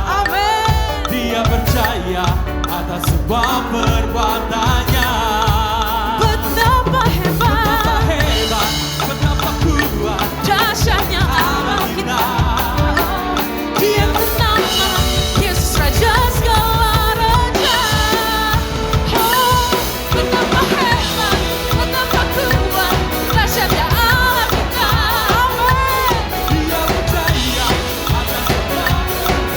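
Drum kit played along to a song with a lead singer, the drums keeping a steady beat. Near the middle the low drum strokes thin out for a few seconds, then the full beat comes back.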